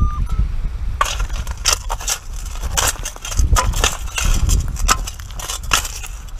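Metal long-handled sand scoop digging into wet beach gravel and pebbles: about a second in, irregular crunching, scraping strokes begin as the scoop is driven in and stones grind against its metal.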